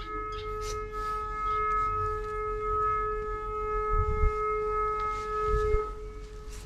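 A long, steady horn-like tone that stops about six seconds in, with two low thuds partway through.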